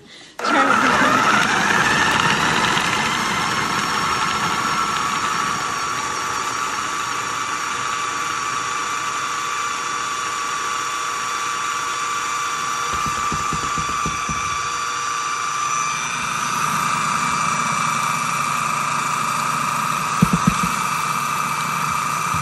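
Electric food processor switching on about half a second in, its motor running with a steady whine as the blade grinds pumpkin seeds and blueberries together.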